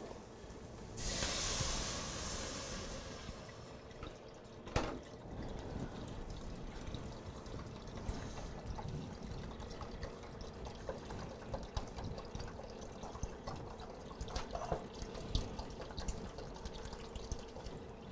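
Broth poured into a pot of sautéed celery, red pepper and onion, a rushing liquid sound lasting about two seconds. A sharp knock follows, then light scattered clinks.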